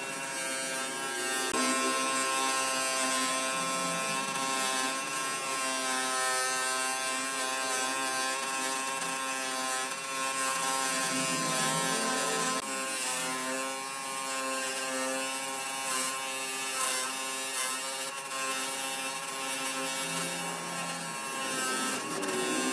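Electric power tool motor running with a steady buzzing hum, its pitch wavering slightly now and then as it is worked.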